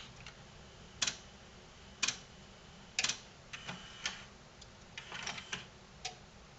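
Sharp plastic-and-metal clicks, three about a second apart, then a run of lighter ticks and taps, as multimeter probes are set onto a mini system's speaker-output connector.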